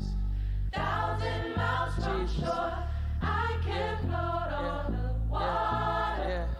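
Gospel choir singing together over a deep, sustained bass.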